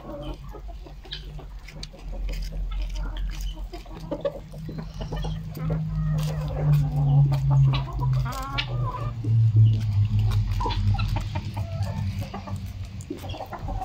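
Chickens clucking as they peck at a cut pumpkin, with many short sharp pecking taps and one hen's wavering call about halfway through. A low steady drone runs underneath.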